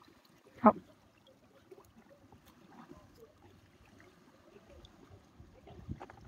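Faint trickling and dripping of seawater around a bucket, with a short vocal sound a little under a second in.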